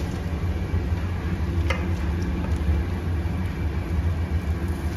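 A steady low rumble of kitchen machinery runs throughout. A metal ladle clinks once against the aluminium soup pot a little under two seconds in.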